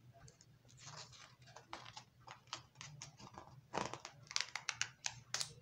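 Page of a hardcover picture book being turned and pressed flat: a run of faint paper rustles and crinkles, busiest about four seconds in.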